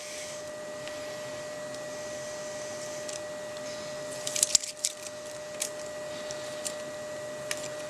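Hands positioning and pressing down a sheet of acrylic held with double-sided tape on a CNC router table: scattered crinkly ticks and a short burst of crackling about four and a half seconds in, over a steady background hum.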